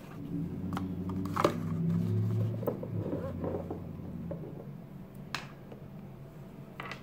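Paper card and cardboard rustling with sharp clicks and knocks as a glass dropper bottle and boxes are handled and set on a table. A low steady hum runs under the first four seconds, then stops.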